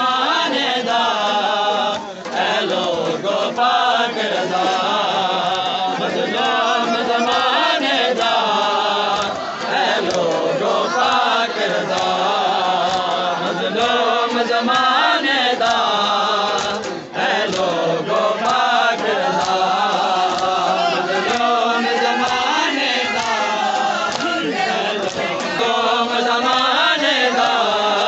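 Group of men chanting a noha, a Shia mourning lament, in unison, with scattered slaps of hands on chests (matam).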